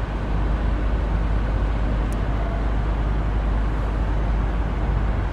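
ChME3 diesel shunting locomotive running with a steady deep rumble from its six-cylinder diesel engine as it approaches hauling a gondola wagon, growing slightly louder just after the start.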